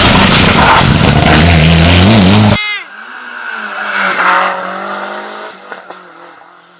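Rally car engine at full throttle, loud and rising in pitch, stopping abruptly about two and a half seconds in. A quieter rally car engine follows, swelling in revs and then fading away.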